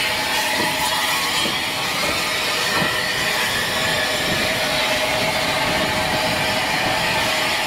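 Bulleid Battle of Britain class Pacific steam locomotive 34081 '92 Squadron' moving away after passing close by, with a steady hiss of steam over the low rumble of its running.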